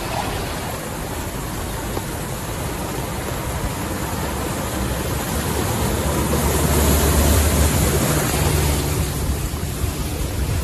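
Steady rushing hiss of heavy rain and running water. A Honda SUV drives through deep floodwater, its engine rumble and the splash of its spray swelling to the loudest point about seven seconds in, then fading.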